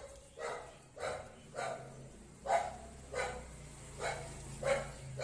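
A dog barking repeatedly, about eight short single barks at a fairly even pace.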